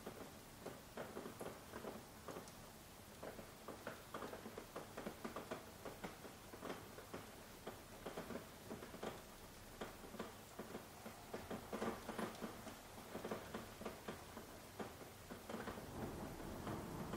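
Soft rain: many irregular drops tapping and pattering over a faint steady hiss.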